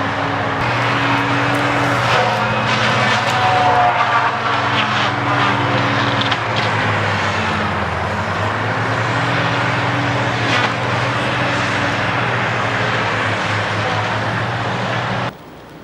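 Engine of heavy logging machinery running steadily, its pitch shifting briefly about halfway through, with scattered crackling and snapping over it. It cuts off abruptly near the end.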